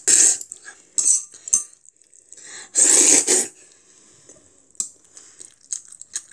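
Metal chopsticks clicking against a ceramic bowl while noodles are lifted and eaten, with two louder mouth noises, one at the start and one about three seconds in, from noodles being slurped.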